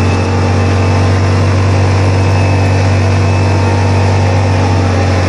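ATV engine running steadily at speed, its pitch holding level, over a loud rushing noise of wind and tyres on a dirt road.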